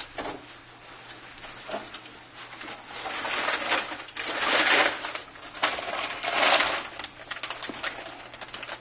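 Hands handling and rubbing a phone against a work surface: several bursts of rubbing and scraping, loudest from about three to seven seconds in.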